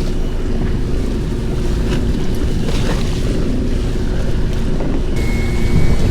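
Fishing boat's engine running steadily: a low hum, with a few faint clicks over it.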